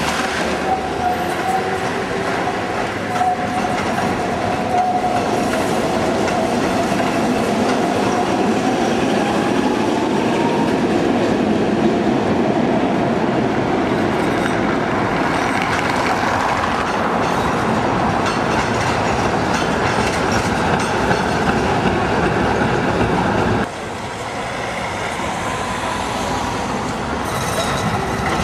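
Articulated trams running over street track, a steady rail rumble with a high wheel squeal on the curve that holds one pitch and then rises near ten seconds in. The sound drops abruptly about three-quarters of the way through, then another tram's rumble builds as it approaches.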